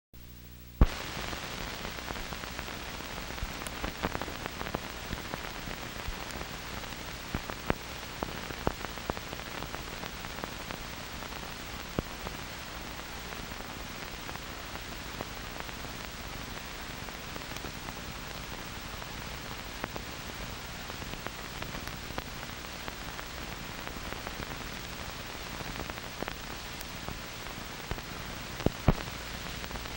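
Steady hiss and crackle of an old film soundtrack with no music or voice, dotted with scattered pops and clicks; it starts with a sharp click about a second in.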